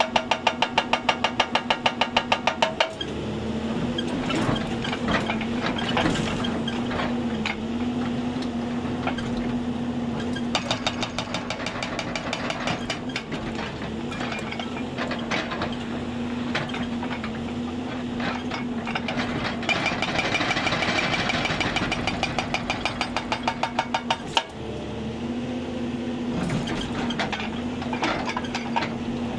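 Hyundai 290 excavator's diesel engine running steadily under load, with its hydraulic rock breaker hammering rapidly, about six blows a second, for the first few seconds and again near the end, and scattered clanks and knocks of steel on rock in between.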